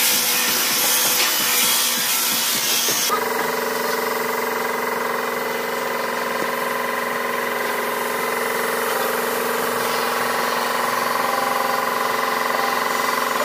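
A handheld electric disc sander running against a wooden slab. About three seconds in it gives way abruptly to a steady hum with a lighter hiss: an air spray gun spraying finish onto the wood, fed by an air compressor.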